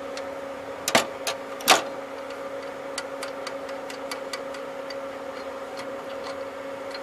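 Metal clicks and knocks from a bolt and hand tools being worked loose on the alternator mount. There are two louder knocks in the first two seconds, then scattered light ticks over a steady low hum.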